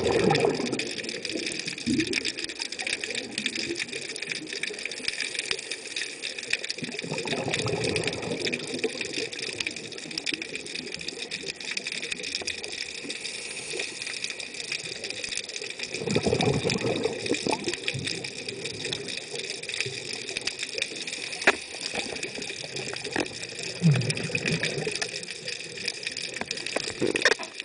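Scuba diver breathing through a regulator underwater: a roar of exhaled bubbles every several seconds, loudest at the start and again about sixteen seconds in, over a steady high hiss.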